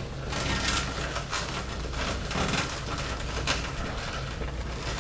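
Faint rustling and light taps of power cables being handled inside a computer case, over a steady low hum.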